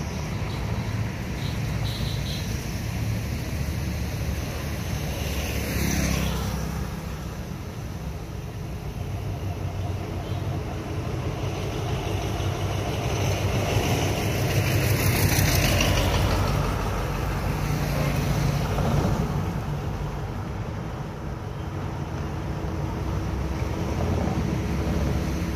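Road traffic going by: motorbikes and cars pass one after another over a constant low rumble, with a concrete mixer truck among them. The loudest passes come about six seconds in, in the middle, and again about two-thirds of the way through.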